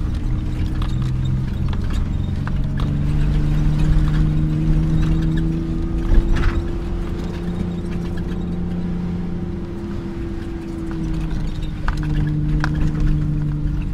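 Off-road vehicle engine running steadily under way, heard from inside the cab, its pitch drifting gently up and down with the throttle. Over it the cab rattles and knocks on the rough dirt track, with one sharper knock about six seconds in.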